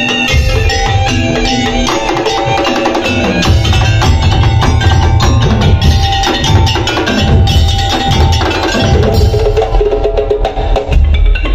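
Madurese daul (tong-tong) music played live: wooden slit drums and other percussion knocking over a heavy low drum beat, with melodic mallet instruments playing a tune on top.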